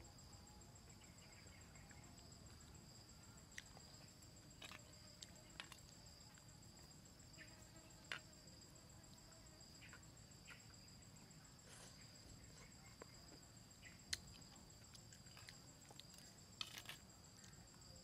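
Faint, steady high-pitched trilling of insects, two unbroken tones, with scattered short clicks over it.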